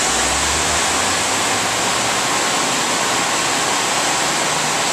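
Steady rushing hiss, even and unchanging, with a faint low hum in the first second.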